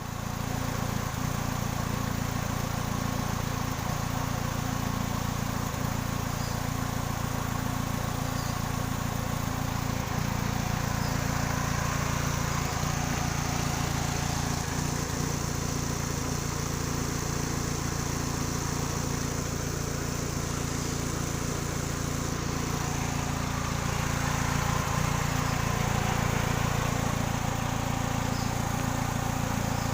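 Kia Sephia's four-cylinder engine idling steadily, a car with a misfire.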